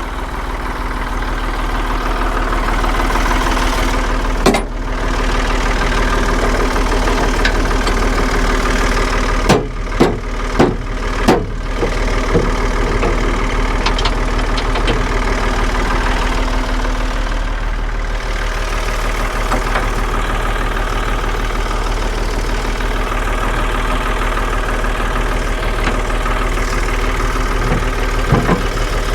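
Tractor engine idling steadily, with a sharp metal clank about four seconds in and a quick run of four clanks around ten to eleven seconds in as pallet forks are lined up and fitted to the front loader.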